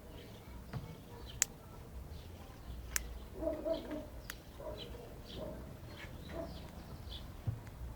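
Black-backed grosbeak giving short scattered high notes, with a run of lower notes from another bird in the middle and three sharp clicks.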